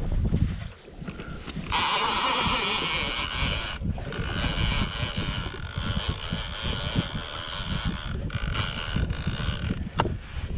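Large conventional fishing reel's drag buzzing as line is pulled off by a hooked fish making a run. It starts about two seconds in, breaks briefly twice and stops near the end, with wind rumbling on the microphone underneath.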